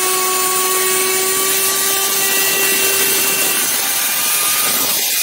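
DeWalt router running at full speed, its bearing-guided bit trimming excess laminate flush along a countertop edge: a steady motor whine over the hiss of the cut.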